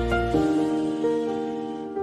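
Calm instrumental music of soft, held piano chords, with new notes struck about a third of a second in and again about a second in. The deep bass drops away about a third of a second in.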